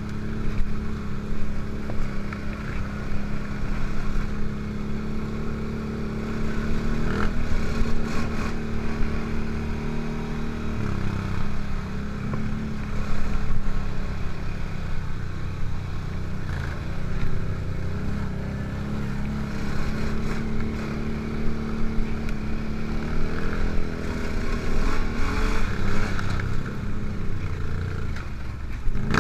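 ATV engine running while riding a dirt trail, its pitch dropping and rising again as the throttle changes, with occasional knocks and rattles from the bumps.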